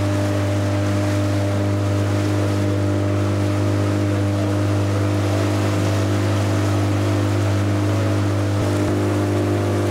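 A motor vehicle's engine running at a steady speed, a deep even hum that holds unchanged throughout.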